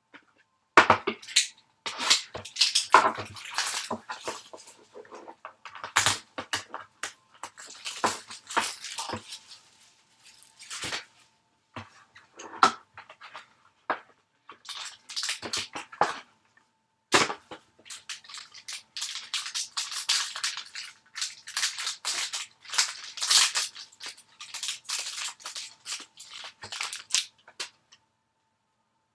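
Packaging being handled and torn open: a sealed trading-card box is unwrapped and opened and its silver foil pack is pulled apart. Irregular crinkling and crackling comes in clusters, with sharp snaps and short pauses.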